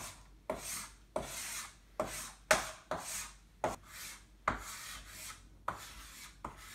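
Chalk writing on a chalkboard: a series of scratchy strokes, about one and a half a second, each starting with a sharp tap of the chalk and trailing off in a scrape.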